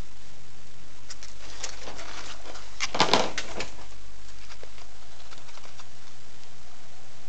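Young puppies giving short squeaks and whimpers while being handled, with the loudest cluster of cries about three seconds in.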